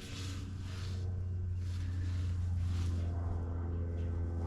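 Steady low motor hum, growing fuller and more engine-like about three seconds in, with a few faint clicks.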